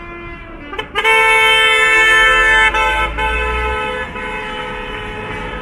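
Car horn held in one loud steady blast of under two seconds, starting about a second in, then a quieter tone continuing with traffic going by. It is a passing driver honking in support of the people standing at the roadside.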